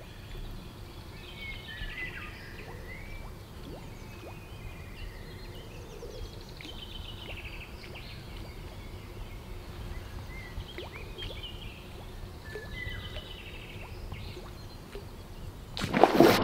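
Birds chirping in short repeated phrases over an outdoor background, then near the end a loud splash as a predatory fish strikes a topwater lure at the surface.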